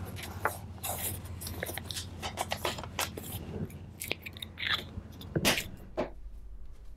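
Paper rustling and crinkling as journal pages and a paper label are handled and pressed down, with irregular small crackles and clicks and a few louder rustles near the end.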